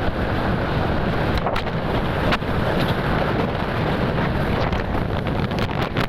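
Wind buffeting the microphone of a moving motorcycle, a steady rush with road and engine noise underneath and a few brief knocks.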